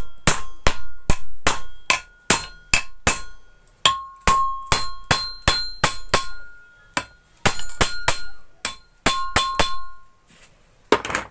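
Hammer tapping repeatedly on metal, about three strikes a second, each with a brief metallic ring, as the water pump's motor is tapped down to seat it on the pump body. The taps stop about ten seconds in, with one more just before the end.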